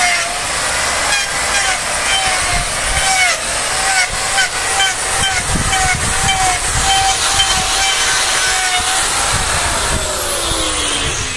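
Electric angle grinder with a hoof-trimming disc running, its whine dipping in pitch every second or so as the disc bites into a bull's hoof. About nine and a half seconds in it is switched off and the whine falls away as the disc winds down.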